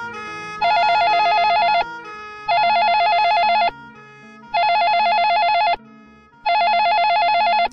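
Telephone ringing: four loud warbling rings, each a little over a second long and about two seconds apart.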